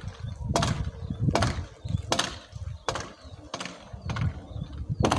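Hand tool striking hard material on a building site at a steady pace, about seven sharp blows roughly three-quarters of a second apart, over a low rumble.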